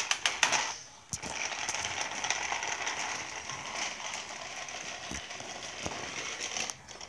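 Battery-powered toy train engine running around a plastic track, its motor and gears giving a steady whirring rattle. A few clicks come first, the whirring starts about a second in, and it stops shortly before the end.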